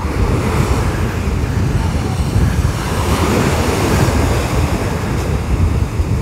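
Choppy Sea of Azov surf breaking and washing up a sandy beach, rough after a night storm, with wind buffeting the microphone.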